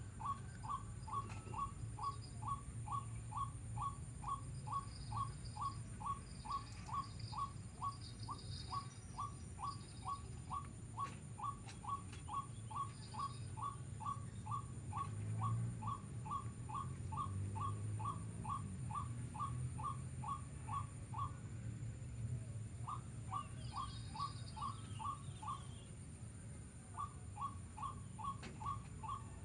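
A bird's short call note, repeated about twice a second in a long even run, then after a pause in two shorter runs. A low steady rumble and a thin high steady tone run underneath.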